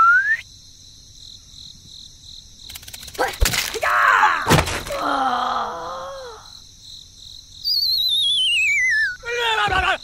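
Cartoon sound effects: a short rising whistle, then two thuds with a squeaky, groaning cartoon voice, then a long falling whistle with a warble, and a brief cartoon voice near the end.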